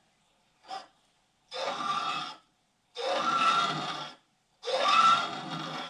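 Hand-turned valve seat cutter scraping a valve seat in a UMZ Evotech 4216 cylinder head: a short scrape, then three strokes of about a second each with brief pauses between.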